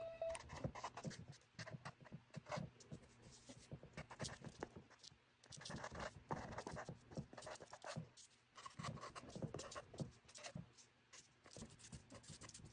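Felt-tip marker writing on a paper note resting on a plastic jar lid: faint scratching in short, irregular strokes.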